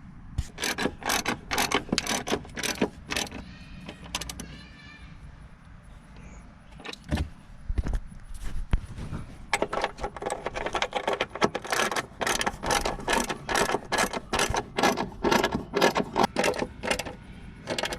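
Ratchet wrench clicking in rapid strokes as it tightens the bolts of a new upper control arm. Two long runs of clicking with a pause of a few seconds in the middle, where a couple of knocks sound.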